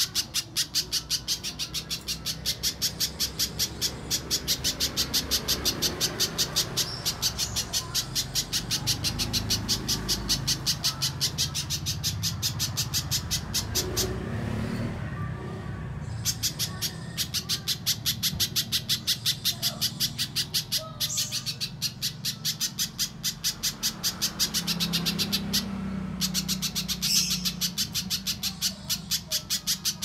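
Little spiderhunter calling: a fast, even train of sharp, high chipping notes, several a second, that stops for about two seconds midway and then carries on.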